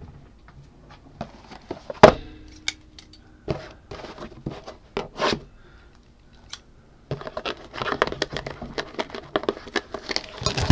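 Trading cards and cardboard blaster boxes being handled on a table, with scattered taps and clicks and a sharp knock about two seconds in. From about seven seconds on comes a dense run of crinkling as packaging is torn open.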